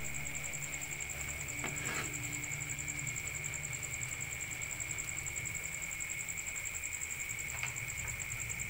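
A steady low machine hum with a high-pitched whine, and a few light knocks of a wooden spatula against a nonstick frying pan as spaghetti is stirred in it, about two seconds in and again near the end.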